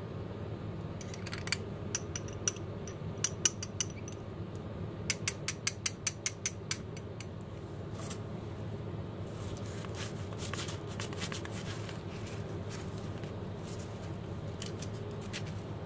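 Light clicks and taps of a paint mixer's thin metal shaft being handled against a small glass, with a quick run of about eight sharp taps around five to seven seconds in. This is followed by soft rubbing as a paper towel wipes the shaft, over a steady low hum.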